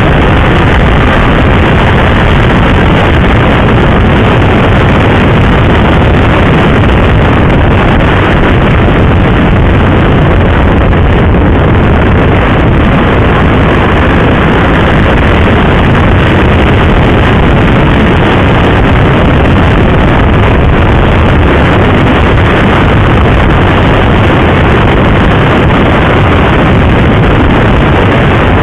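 Steady, loud wind rush over the microphone at riding speed, mixed with a sport motorcycle's engine running.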